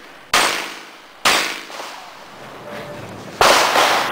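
Handgun shots fired during a practical shooting course of fire. Two sharp shots come about a second apart, then after a pause of about two seconds a quick string of shots follows near the end.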